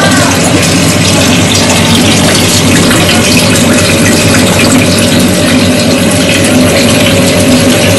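Aquaponics system running: steady rush of circulating water with the low hum of its pump.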